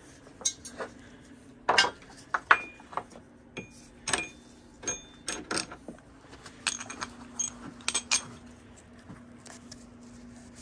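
Scattered metallic clinks and clatters of a small cut steel tab and tools being handled, several with a brief ring, over a faint steady hum.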